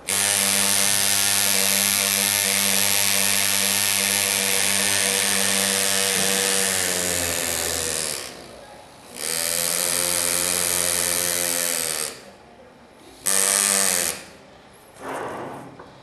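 Andu pneumatic engraver buzzing as its graver cuts into a metal engine cover: a steady, high-rate hammering hum with air hiss. It runs in spurts, one of about eight seconds, one of about three, a short one and a fainter one near the end. The pitch sags as each run winds down.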